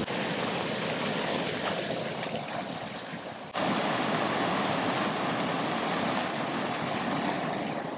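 Steady rush of whitewater pouring over a low dam's spillway and churning below it. The noise steps up a little louder about three and a half seconds in.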